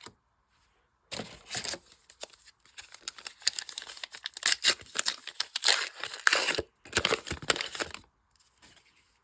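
A trading-card booster pack wrapper being torn open and crinkled by hand, a dense run of crackling and ripping that starts about a second in and dies down near the end.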